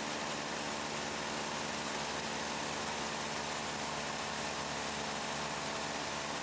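Steady engine drone of the aircraft shooting the aerial footage, heard from on board: a constant hum of several held tones under a rushing hiss, with no change in level.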